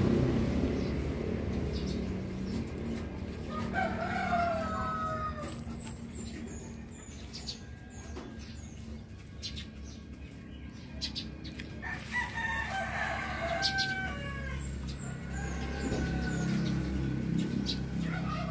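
Chickens calling in the background, one long call about four seconds in and more around twelve seconds, over light clicks and scrapes of a wooden spoon mixing ground meat and flour in a bowl. A low rumble fades away in the first two seconds.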